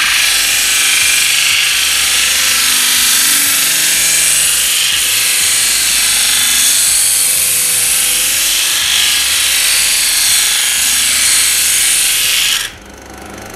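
SIP 01953 12-inch disc sander's abrasive disc sanding the end of an oak board: a loud, steady rasping hiss of wood being ground away. Near the end the hiss cuts off as the board comes away, leaving the quieter hum of the induction motor still running.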